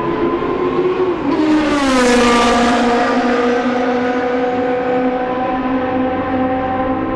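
Historic Formula 1 race car passing at speed. Its engine note drops in pitch as it goes by, about a second and a half in, with a burst of rushing noise, then holds a steady note as it goes away.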